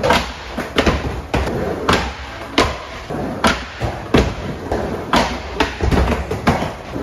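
Skateboard on a wooden mini ramp: a steady rolling rumble of the wheels, broken by about a dozen sharp clacks and thuds as the board hits the coping and lands.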